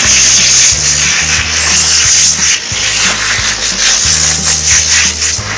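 High-pressure water jet from a pressure-washer gun hissing as it sprays the stainless-steel drum of a top-load washing machine, the spray noise flickering as the jet moves over the metal.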